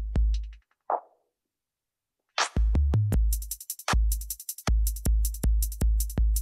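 Drum-machine beat with a long, deep kick and hi-hats, played from Serato through a Numark Scratch mixer and triggered from its hot cue pads. It plays in stops and starts: a kick and hats, a lone hit about a second in, a silent gap, then the beat restarting over and over in short cut-off bursts.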